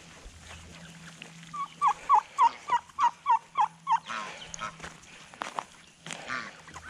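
Domestic geese honking: a quick run of about ten short, down-curving calls over two and a half seconds, followed by a few softer calls.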